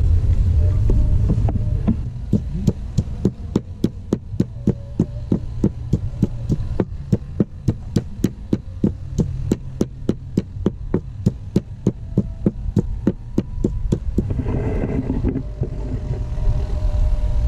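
Wooden pestle pounding in a large wooden mortar, a steady run of sharp knocks at about four strokes a second that stops a couple of seconds before the end. A steady low rumble runs underneath.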